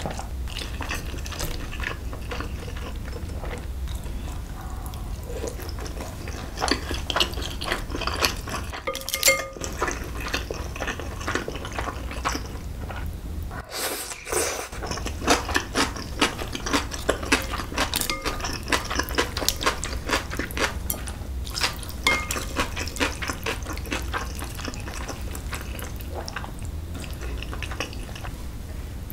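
Metal chopsticks clicking against bowls and cold noodle broth dripping and splashing as noodles are lifted into a small bowl, with many small clicks throughout, busier in the middle stretch.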